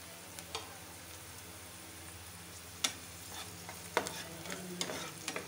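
Chopped onion and green capsicum frying gently in oil in a frying pan, with a spatula stirring them and knocking sharply against the pan a few times, mostly in the second half.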